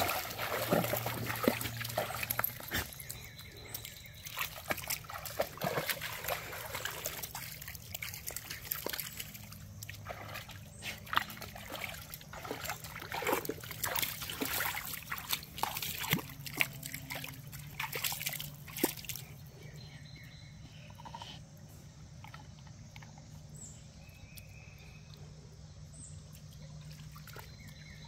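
Dogs wading through a shallow, rocky creek, water splashing and sloshing around their legs. About two-thirds of the way in the splashing stops and only the creek's quieter trickle is left, with a few faint high chirps.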